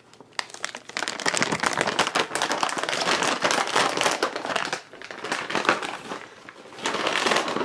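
Plastic treat bag crinkling and rustling as it is handled and opened, starting about a second in, easing off for a moment, then crinkling again near the end.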